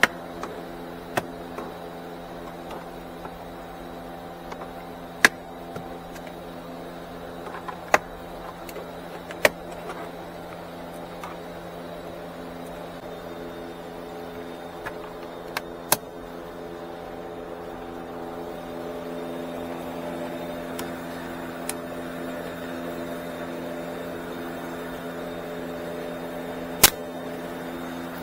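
Plastic dashboard trim being pried with a trim tool: scattered sharp clicks and snaps of tool and clips on plastic, the loudest near the end. A steady mechanical hum runs underneath.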